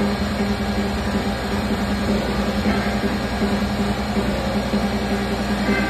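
Turbo Tubs carnival ride running: a steady, unbroken mechanical hum with a low drone from its drive machinery as the platform and tubs turn.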